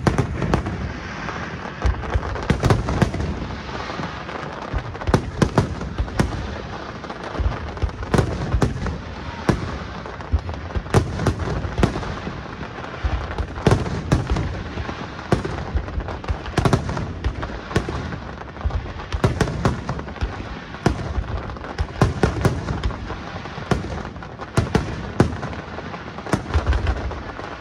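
Fireworks display: a rapid, unbroken barrage of aerial shells bursting, with sharp bangs several times a second over a constant crackle.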